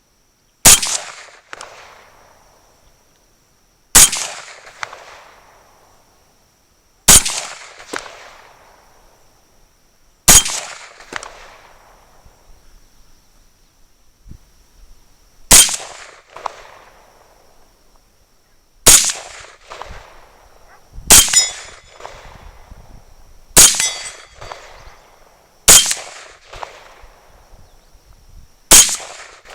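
M1 carbine firing .30 Carbine ball, ten single semi-automatic shots spaced two to five seconds apart, each with a short echo trailing off.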